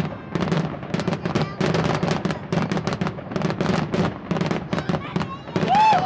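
Fireworks display going off: a dense, irregular run of sharp bangs and crackles, several a second. Near the end a high tone rises and falls over the explosions.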